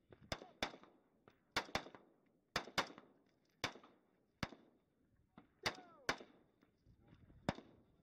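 Several rifles firing single shots at an irregular pace, about a dozen cracks in eight seconds, some in quick pairs, each with a short echo.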